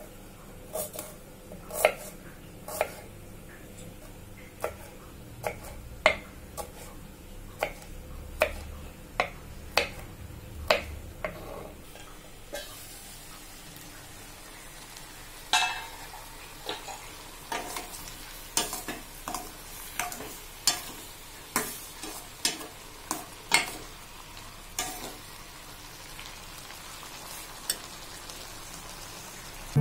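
A steel knife chopping a red onion on a wooden cutting board, in irregular knocks about one or two a second. About twelve seconds in, this gives way to raw banana pieces bubbling in water in a steel pan, a steady hiss, with a steel spoon stirring and clinking against the pan.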